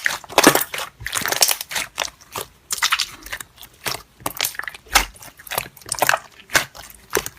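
Slime being pressed and worked by hand, making an irregular run of crackling clicks and squelches with short pauses between handfuls.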